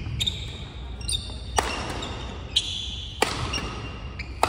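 Badminton doubles rally: rackets strike the shuttlecock about six times, sharp cracks half a second to a second apart, with short high squeaks of court shoes on the hall floor between the shots.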